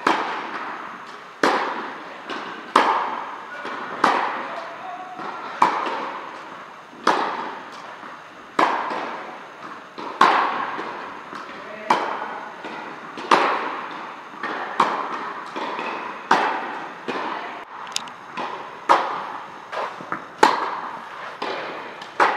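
Tennis racket striking tennis balls in a rally drill, a sharp hit about every second and a half, with fainter knocks in between. Each hit echoes through a large indoor tennis hall.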